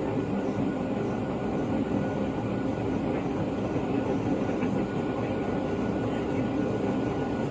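Steady cabin noise inside a Boeing 757 airliner in flight: the even rush of air and engine drone, with a faint steady whine.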